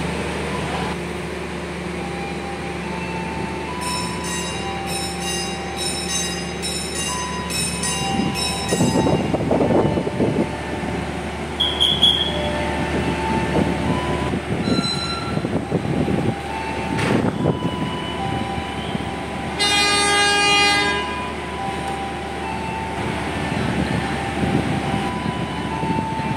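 Train running, with shifting squealing tones over the rumble. A high ringing repeats about twice a second between about four and nine seconds in, and the horn sounds once for about a second, about twenty seconds in.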